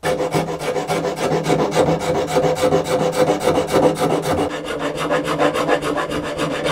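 Metal file rasping across a cello's ebony nut in quick, even back-and-forth strokes, several a second, shaping the nut flush with the end of the fingerboard.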